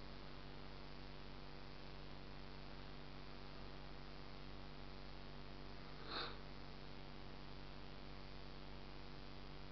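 Steady electronic hiss with a low, even mains-type hum: the recording's own noise floor, with no other sound going on. About six seconds in, one brief soft noise, no longer than a third of a second.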